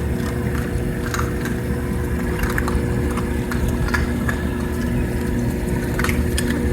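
Washing machine running: a steady motor hum over a low rumble, with scattered light knocks.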